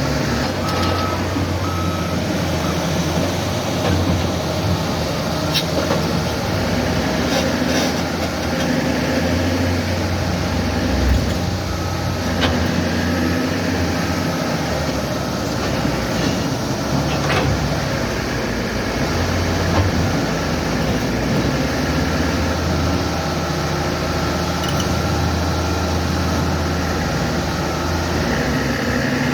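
Heavy earth-moving machinery's diesel engine running, its low note swelling and easing with load. There are a few sharp knocks, and short beeping tones come in a couple of times, once about a second in and again near the middle.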